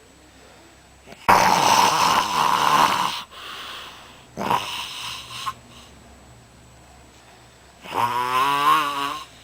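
A sleeping person snoring loudly and harshly: a long snore about a second in, a shorter one in the middle, and a buzzing snore that wavers in pitch near the end.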